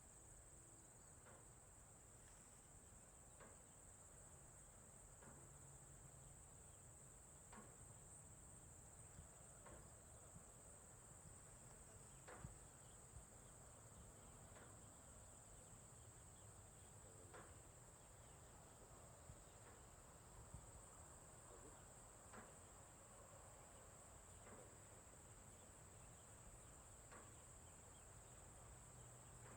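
Crickets in a faint, steady high-pitched trill that never breaks, with soft short ticks every two or three seconds and a low rumble underneath.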